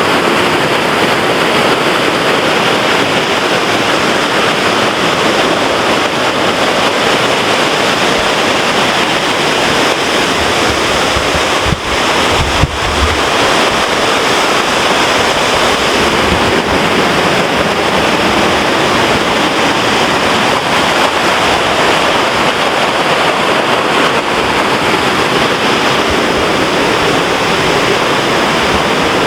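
Loud, steady rush of a creek running high with spring runoff, with a brief low bump on the microphone about twelve seconds in.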